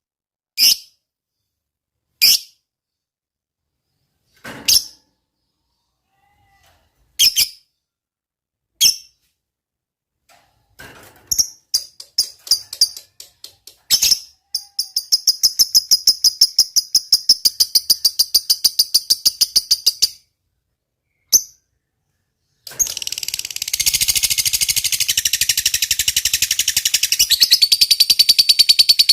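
Fighter lovebird calling: single sharp chirps every second or two, then quickening chatter that breaks into a long, fast, even rattling trill (ngekek). After a short pause and one lone chirp, a second unbroken long ngekek trill starts about three-quarters of the way in.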